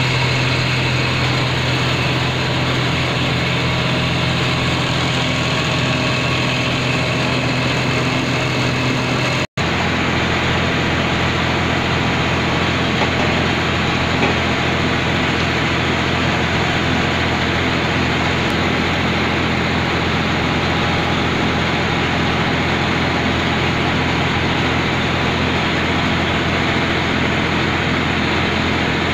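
Kinnow orange waxing and packing machine running: a steady, loud mechanical hum of its electric motors, rollers and brushes. The sound drops out for an instant about nine seconds in.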